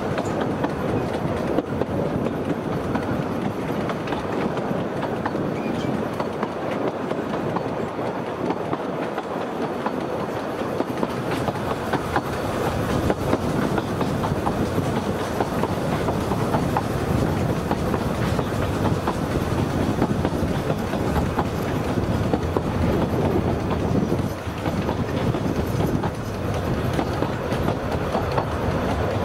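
Narrow-gauge train running along the line: a steady rumble with frequent sharp clicks from the wheels and track.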